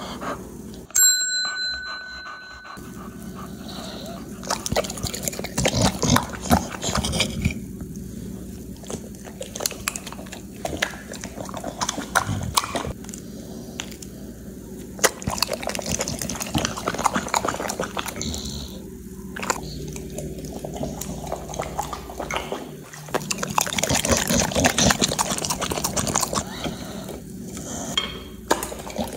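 Close-up tableware sounds: gravy spooned and dripping onto a pork shoulder, and a metal fork clinking and scraping on a ceramic plate. A short bell-like ding rings about a second in.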